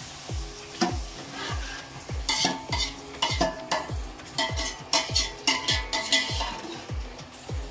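A spoon stirring wet vermicelli in a large aluminium pot, repeatedly knocking and scraping against the pot's side with short ringing clangs, many strikes from about two seconds in. A hiss from the water just poured onto the hot fried vermicelli fades over the first two seconds.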